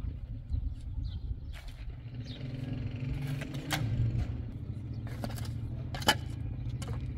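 Metal blade of a long-handled hoe scraping through stony soil, with sharp clicks as it strikes stones several times, the loudest about six seconds in. A steady low hum runs underneath.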